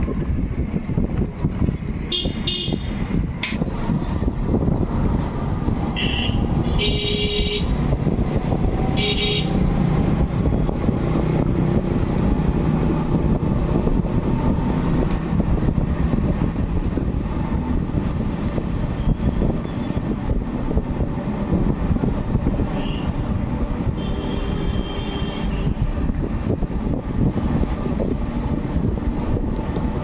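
Road traffic with a steady low rumble and several short, high-pitched vehicle horn toots: a cluster about two seconds in, more between six and nine seconds in, and a longer toot around twenty-four seconds in.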